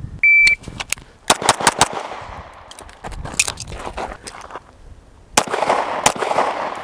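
A shot timer's short beep, then a handgun fired four times in rapid succession, a few quieter clicks during a reload on the move, and two more shots about a second apart near the end.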